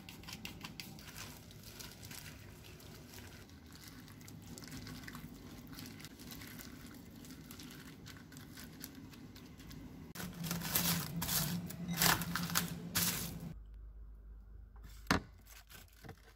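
Wet squishing and smacking of raw pork pieces being mixed with a soy-sauce marinade in a glass bowl. About ten seconds in comes a few seconds of loud crinkling and tearing of plastic wrap. A single sharp knock near the end is the bowl being set on a fridge shelf.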